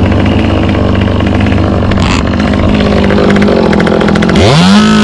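Two-stroke chainsaw idling with an uneven, rattly run, then revved up to full throttle about four seconds in, its pitch rising quickly and holding high.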